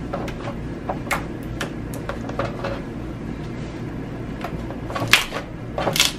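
Slime being poked, squeezed and stretched by hand, giving an irregular string of sharp clicks and pops, the loudest about five and six seconds in, over a low steady hum.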